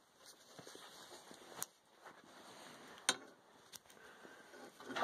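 A steel poker raking through ash in a wood stove's steel firebox: soft scraping with four sharp metallic clinks as it knocks against the steel.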